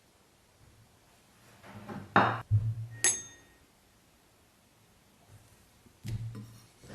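Quiet stretches broken by soft handling noises, a single sharp clink about three seconds in, and a short low knock near the end.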